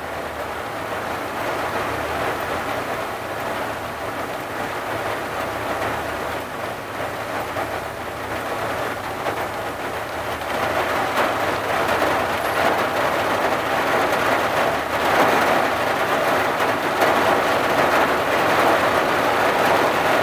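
Rain falling on a vehicle's windshield and roof, heard from inside the cab as a steady dense patter. It grows louder about halfway through.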